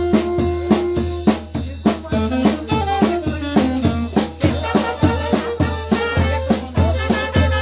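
A live band playing: snare and bass drums beating a steady rhythm under a saxophone melody with long held notes.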